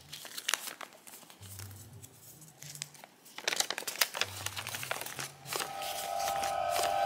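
Paper crinkling and rustling as a folded piece of paper is worked out from inside a cut-open doll. There are scattered crackles, which get busier about halfway through. A steady held tone comes in near the end.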